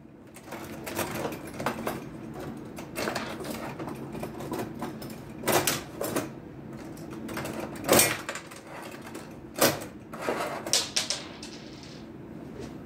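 Metal rods and players of a 1962 Munro table hockey game clicking and rattling as the rods are pushed, pulled and twisted to shoot the puck, with a string of sharp knocks, the loudest about eight seconds in.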